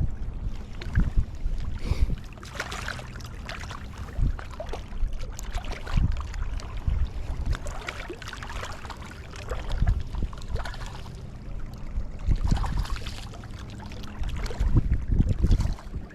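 Strong wind buffeting the microphone in gusts, with water lapping and sloshing at the bank.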